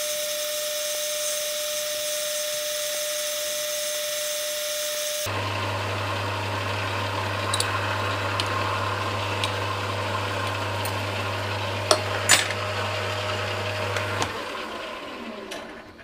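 Sieg C6 metal lathe running while its turning tool cuts an aluminium bolt knob, a steady machine sound; a low hum comes in about five seconds in, and there are a few sharp clicks near the end. The lathe is then switched off and winds down to quiet over the last couple of seconds.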